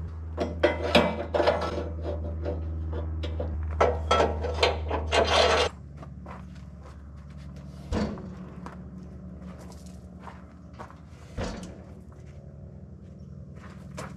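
Wooden knocks and scraping as a log is shifted and clamped on a portable sawmill's steel bed, clustered in the first six seconds, then two single knocks later on. A steady low hum runs underneath and cuts off suddenly about six seconds in.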